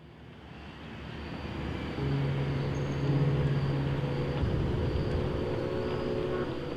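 Outdoor traffic ambience: a motor vehicle passes, its noise swelling over the first couple of seconds, with a steady low engine hum from about two seconds in that drops away after about four seconds.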